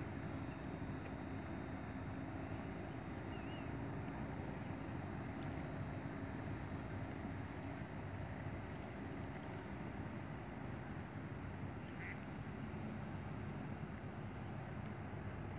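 Steady outdoor background noise, with insects chirping in a fast, even, high-pitched pulse and a faint low hum underneath.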